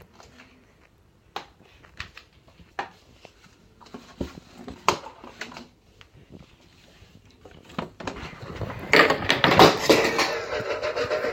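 Scattered light clicks and knocks of small household objects being handled, then a much louder, sustained noise starting about eight seconds in.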